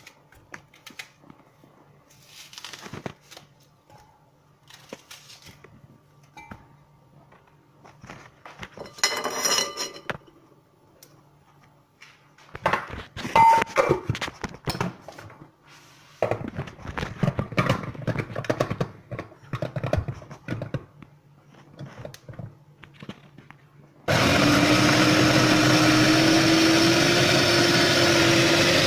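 Quartered onions knock and clatter as they are packed into a glass food-processor bowl and the lid is fitted. Near the end, the food processor's motor starts suddenly and runs steadily for about five seconds, its pitch rising slightly as it chops the onions fine, then stops.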